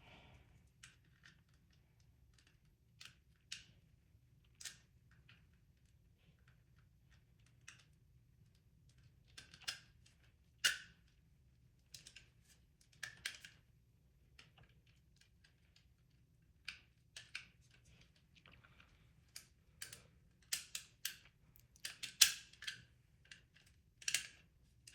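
Irregular clicks and light knocks of 3D-printed plastic pistol parts being handled and fitted together, with a few sharper clicks around the middle and a busy cluster near the end.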